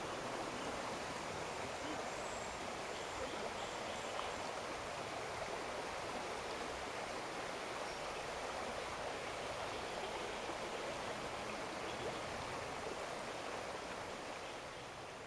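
Steady rushing of creek water flowing over stones, which fades out near the end.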